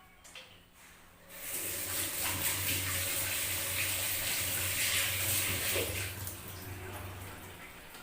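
Kitchen sink tap running, water splashing into the sink, starting about a second in and easing off near the end.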